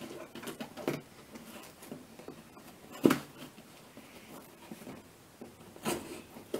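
Scissors cutting packing tape on a cardboard box: a few scattered snips and knocks, the loudest about three seconds in.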